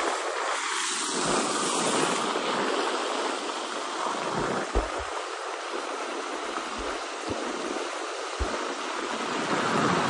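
Blizzard wind blowing across the microphone: a steady rushing noise with a few short low thumps from gusts buffeting it.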